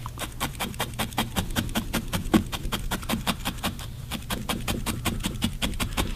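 A felting needle stabbed rapidly and repeatedly into wool, about six soft punctures a second in an even rhythm, fixing a new piece of wool in place.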